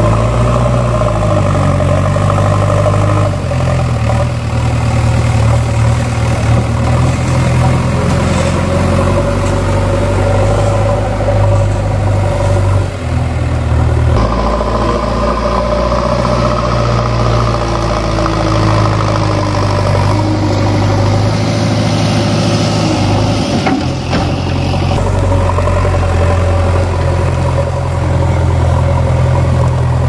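JCB backhoe loader's diesel engine running steadily while it pushes soil with its front loader bucket. The engine note steps to a different pitch a few times.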